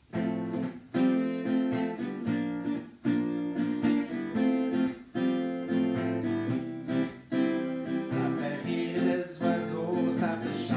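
Acoustic guitar strummed in a steady rhythm, with a strong chord stroke about once a second, playing the instrumental intro to the song.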